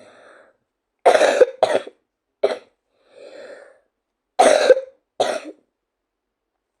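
A girl with a cold coughing: a double cough about a second in, a single cough, a softer breath, then another double cough near the middle.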